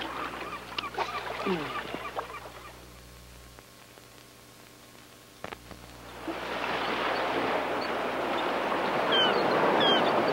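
Surf washing onto a sandy beach, coming in strongly about six seconds in after a quieter stretch. A bird gives three short, high, falling calls over the surf near the end.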